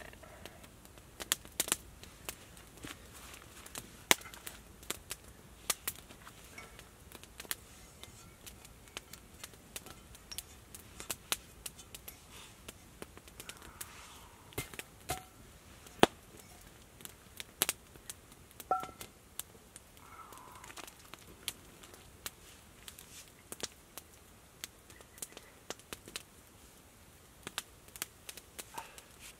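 Small wood campfire crackling, with sharp irregular pops and snaps, sometimes several in a second.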